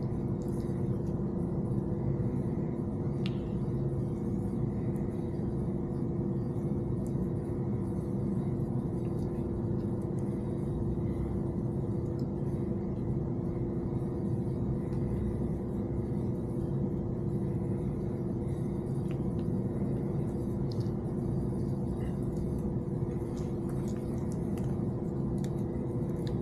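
Steady machine hum with a constant droning tone and low rumble, unchanged throughout, with a few faint clicks over it.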